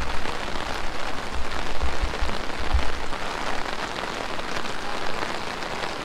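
Heavy monsoon rain falling steadily, with low rumbling bumps on the microphone during the first three seconds.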